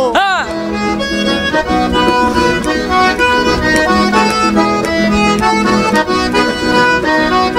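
Vallenato music played live: a button accordion runs a quick, busy melody over a steady bass. A short sung cry rings out at the very start.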